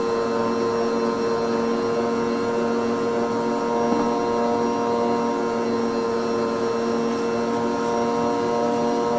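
Electric stand mixer running steadily, its motor giving an even hum with a steady whine, while it mixes mashed baked potato as powdered sugar is spooned in.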